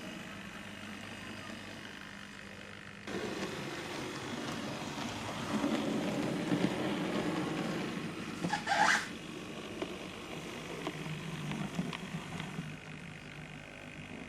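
OO-gauge model steam locomotive (LMS 4F) running along the track, its small motor and wheels making a steady mechanical noise that starts suddenly about three seconds in, with a brief high-pitched sound just before nine seconds.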